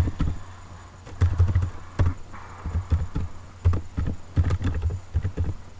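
Typing on a computer keyboard: irregular key clicks, each with a dull thud.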